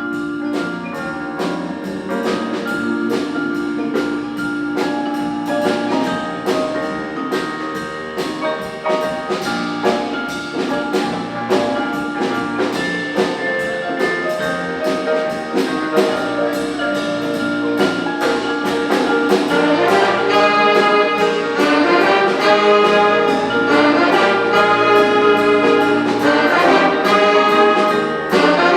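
Student jazz big band playing, with brass (trumpets and trombones) over a steady drum beat. The full band grows louder about twenty seconds in.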